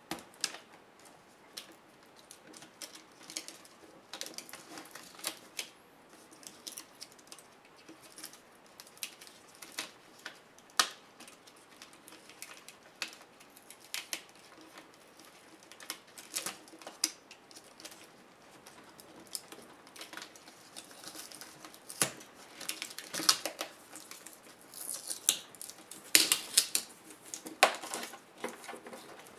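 Hands working on a laptop's LCD panel: irregular small clicks, taps and rustles of plastic, thin metal and cables being handled. The clicks come thicker and louder in the last several seconds, as the display ribbon cable is pulled free.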